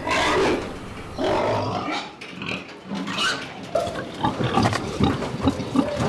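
A pig squealing and grunting in a string of short cries while it is held and handled in a metal weighing cage.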